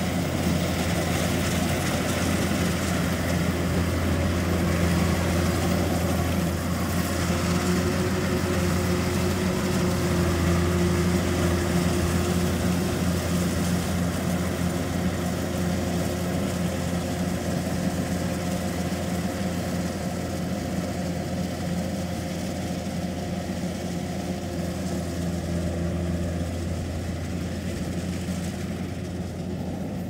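Kubota DC-105X combine harvester's diesel engine running steadily under load while it cuts rice, a constant low hum that fades a little near the end as the machine moves away.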